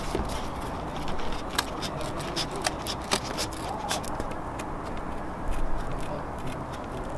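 Scissors trimming the edge of a template, a series of short, irregular snipping clicks over light handling noise.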